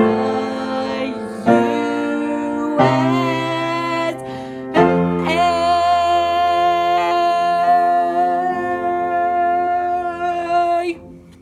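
Closing phrase of a song sung over a piano-led backing track: a few notes, then a final note held for about six seconds that stops sharply near the end.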